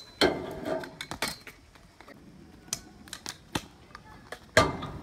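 Stunt scooters hitting a steel guardrail: a loud metal clank just after the start with a short scrape and rattle trailing after it, a few lighter knocks, and another loud clank near the end.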